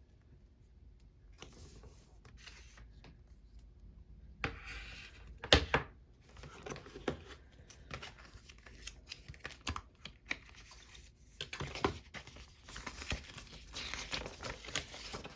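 Paper and plastic packaging from an iPad box being handled, rustling, crinkling and tearing, with scattered small clicks and taps. There is one sharp, loud tap about five and a half seconds in.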